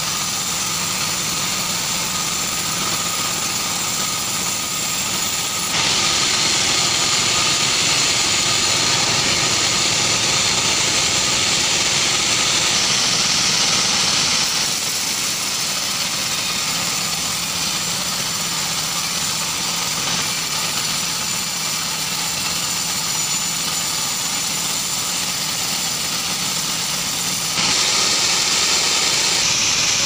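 Band sawmill running steadily, its blade sawing through a log. The level jumps abruptly up or down a few times, about 6, 15 and 28 seconds in.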